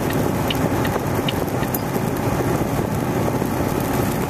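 Steady engine and road noise inside the cab of a Mack semi-truck driving on the highway. A light, regular ticking sounds over it and stops about a second and a half in.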